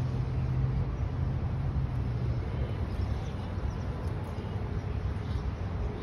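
Steady low rumble of motor traffic, with one vehicle's engine hum that fades out a little over two seconds in.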